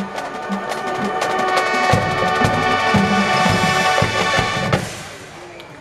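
High school marching band playing: brass over drums and mallet percussion, swelling about two seconds in to a loud held chord with drum hits, which cuts off sharply near the end and dies away.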